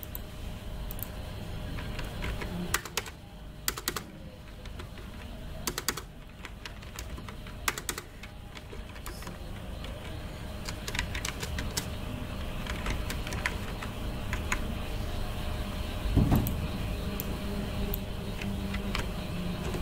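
Typing on a computer keyboard: irregular key clicks in short runs with pauses between, over a steady low background hum. A brief low thump comes about sixteen seconds in.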